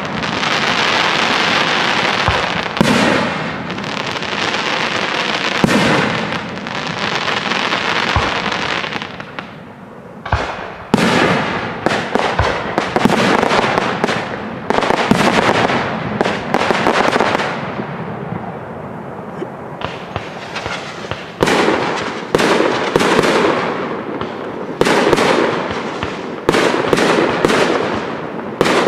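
Aerial firework shells bursting one after another in a professional display, each sudden bang trailing off slowly. A quieter lull comes about ten seconds in, and the last third holds a quick run of bursts.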